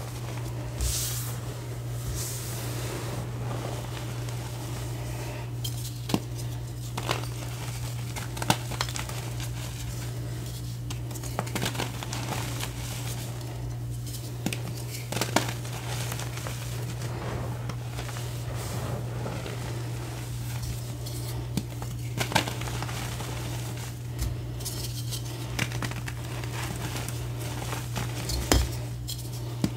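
Hands crushing reformed gym chalk blocks and squeezing loose chalk powder: soft crumbling and crunching with many sharp little cracks scattered throughout, over a steady low hum.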